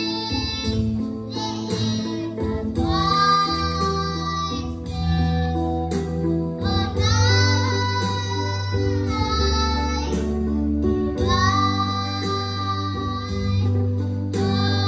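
Music: a song with a high, child-like singing voice holding long notes in phrases of a few seconds, over a steady bass line.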